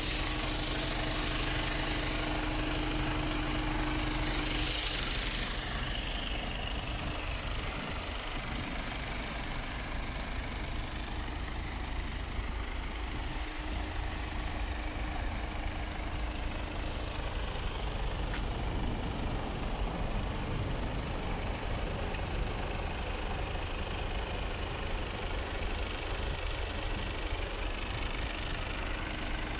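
Mercedes Actros 2548's 12.8-litre straight-six diesel idling steadily, a low, even hum.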